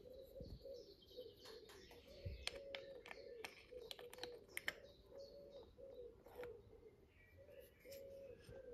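Light metallic clicks and taps as the parts of a small machined model boxer engine are handled, bunched in the first half, over a faint low warbling sound.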